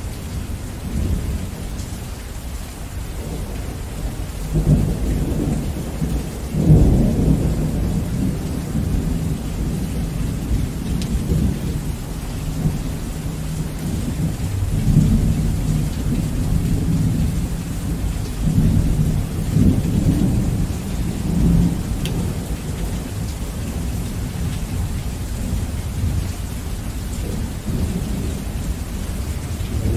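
Heavy rain with thunder rolling continuously beneath it. The deep rumbles swell loudest about four and a half and seven seconds in, with further swells around the middle and two-thirds of the way through.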